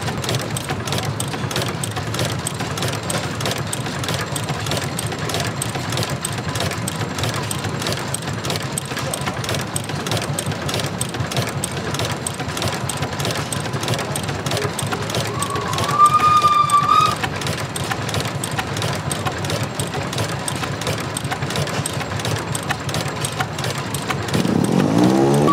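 Old stationary engine running steadily with a fast, even beat. About two-thirds of the way in a short high whistle-like tone sounds for about a second, and near the end a rising tone sets in.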